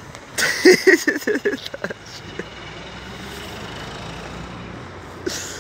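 A brief run of voice-like sounds about half a second in, then the steady noise of a road vehicle going by, with a short burst near the end.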